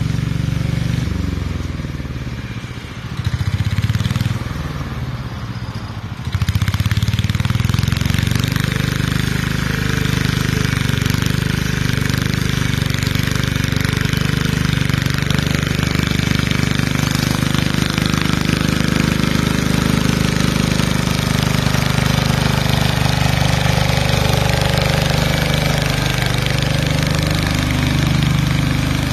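Lister diesel engine of a Power Pony garden tractor running under load while it tows a ride-on mower. It is uneven at first, then louder and steady from about six seconds in.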